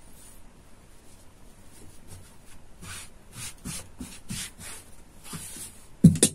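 Hands rubbing and smoothing folded cloth flat on a cutting table: a run of short swishing strokes, then one loud thump near the end.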